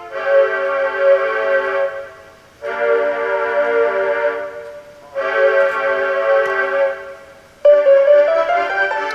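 Light background music arranged on a computer: sustained chords in phrases of about two seconds with short breaks between them, changing to a busier run of moving notes near the end.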